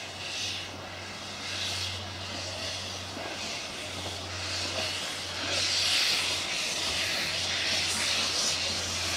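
Small narrow-gauge steam locomotive getting under way, its steam hissing in slow, spaced chuffs at first and then in a longer, louder hiss from about halfway.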